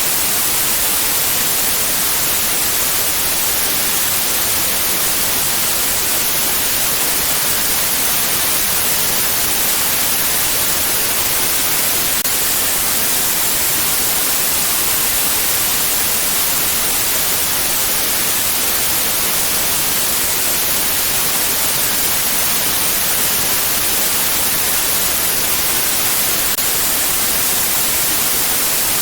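Steady white noise: an even, unchanging hiss, strongest in the high end, played as a sleep aid for babies.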